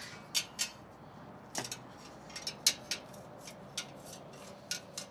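Hammer lightly tapping the stock steel exhaust tip of a Dodge Charger Scat Pack, about a dozen sharp metallic taps at an uneven pace, to break the rust and corrosion holding the tip onto the muffler outlet.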